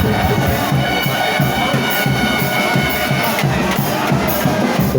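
Frevo band music: brass horns holding notes over a steady drumbeat with cymbal or snare strikes, a crowd audible underneath.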